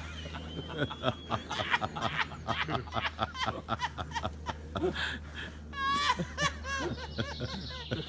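Person snickering in quick repeated bursts, breaking into a high, wavering laugh about six seconds in.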